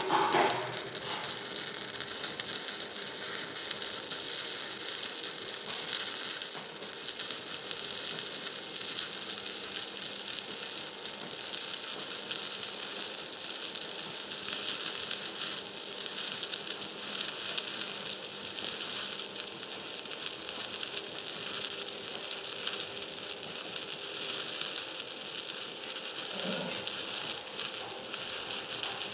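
Stick (SMAW) welding arc burning an E6013 rutile electrode on mild steel: a steady crackle and hiss that runs without a break.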